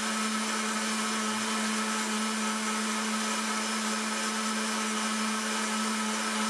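Countertop blender running steadily, its motor giving a constant hum and whine as it churns a dark slurry of graphite in water and acetone in a glass jar.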